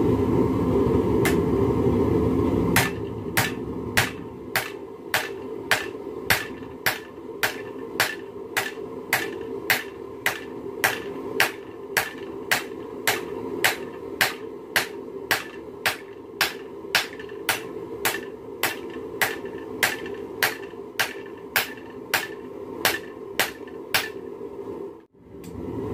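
Hand hammer forging a red-hot railroad spike on an anvil: a steady run of blows, about one and a half a second, each a sharp ringing clang of steel on steel. A steady low rumble runs underneath and is loudest in the first few seconds, before the hammering gets going. The blows stop shortly before the end.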